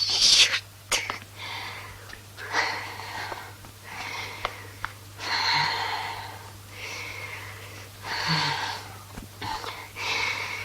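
A person crying in ragged, wheezing sobs and sharp breaths, coming irregularly every second or so.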